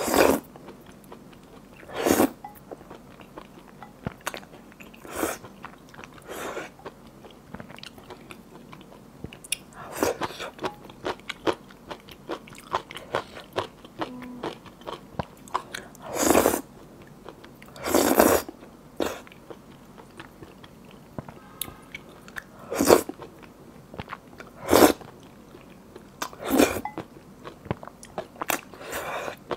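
Close-miked slurping and chewing of noodles in a thick, sticky sesame-paste malatang sauce: about ten loud slurps a few seconds apart, with soft wet mouth clicks and chewing in between.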